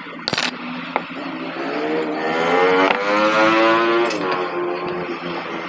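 A passing motor vehicle's engine, rising in pitch and loudness and then falling away as it goes by. A sharp click is heard about half a second in.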